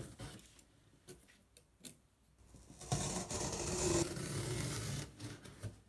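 Scissors cutting through the packing tape and cardboard of a large shipping box: a few faint clicks, then about three seconds in a steady scraping sound lasting some two and a half seconds.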